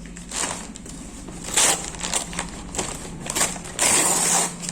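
Parcel packaging crinkling and rustling as it is torn and pulled open, in a run of short bursts with a longer loud rustle near the end.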